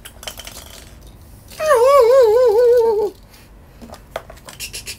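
A warbling sound effect: one pitched tone wavering up and down about four times a second for roughly a second and a half, starting and stopping abruptly, amid light clicks and taps.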